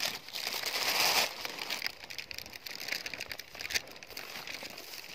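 Clear plastic bag crinkling, loudest for about the first second, then lighter crackling and rustling that goes on through the rest.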